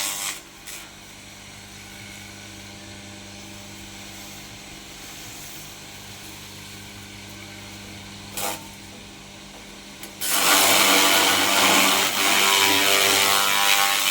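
Small electric chaff cutter humming steadily with a low mains-motor drone for about ten seconds. A brief clack comes in the middle. About ten seconds in, the loud harsh noise of cutting starts up and keeps going.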